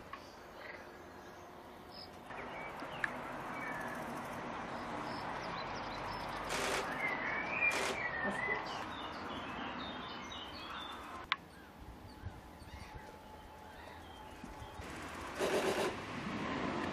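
Great reed warbler singing a few short, harsh, grating phrases, two near the middle and one near the end, over a steady background rush of noise.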